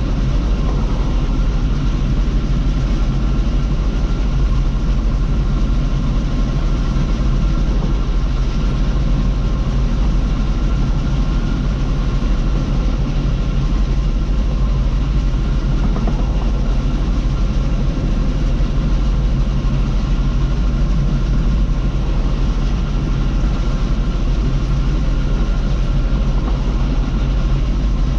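Bizon Rekord combine harvester running steadily: a heavy low drone with a faint steady whine above it.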